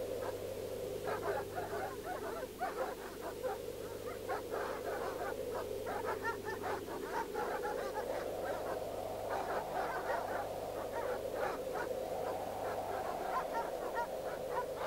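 A chorus of many frogs croaking, a dense, continuous overlap of short calls.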